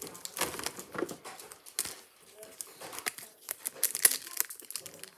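Foil Pokémon booster pack wrapper crinkling and rustling in the hands, in many short crackly bursts.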